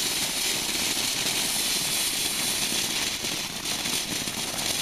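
Ground fountain firework spraying sparks with a loud, steady hiss.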